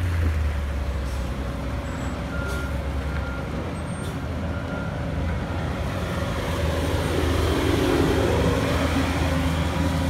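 Diesel engines of heavy road-paving trucks and machinery running steadily, growing louder about seven seconds in, with a few faint short beeps early on.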